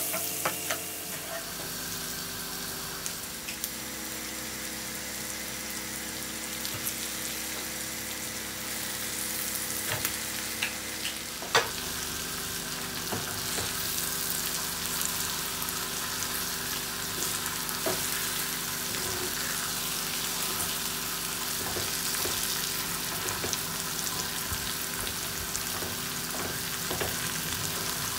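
Food frying in hot oil in a pan: a steady sizzle, with scattered light clicks of a utensil against the pan and one sharper clack about eleven and a half seconds in. A steady low hum runs underneath.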